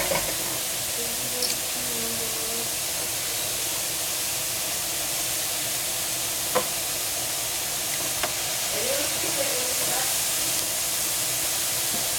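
Mixed mushrooms sizzling in a nonstick frying pan: a steady hiss, with two sharp ticks about halfway through.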